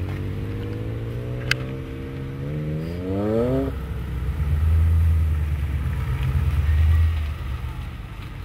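Car engine revving under hard acceleration, its pitch rising steadily for about three and a half seconds, then a louder low rumble as a car accelerates hard close by. A single sharp click comes about a second and a half in.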